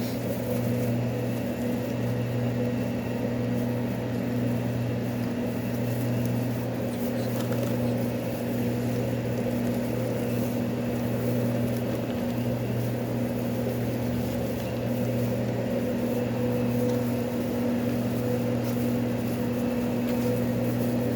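Steady low machine hum of running kitchen equipment, with a constant faint higher tone over it and a few soft clicks of handling.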